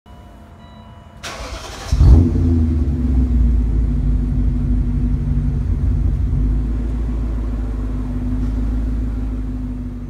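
BMW E39 M5's S62 V8 being started: the starter cranks briefly, the engine catches with a sharp burst about two seconds in, then settles into a steady idle.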